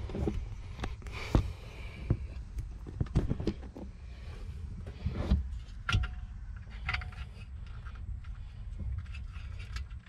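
Hands handling a replacement Bose car audio amplifier and plugging the trunk wiring harness connectors into it: scattered light clicks and knocks of plastic and metal over a steady low rumble.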